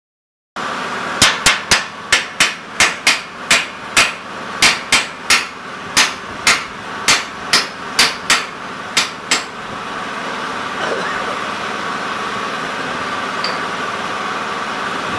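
A hammer striking a plasma-cut steel plate about twenty times in quick succession, each blow a sharp metallic clang, knocking the cut-out pieces loose from the sheet. After the blows stop, a steady machine hum continues.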